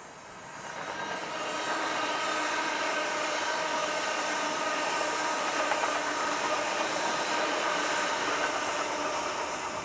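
Electric trains on the West Coast Main Line: a Class 390 Pendolino approaching and a second electric multiple unit passing close by. The sound swells over the first couple of seconds into a steady rush with a whine of several pitches.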